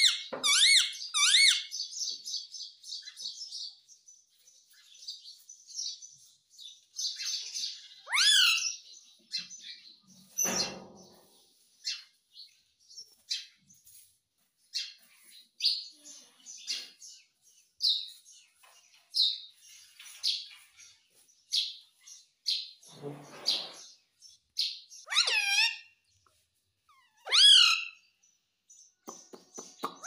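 Indian ringneck (rose-ringed) parakeet calling on and off with short, high chirps, broken up by a few louder shrill calls that swoop in pitch.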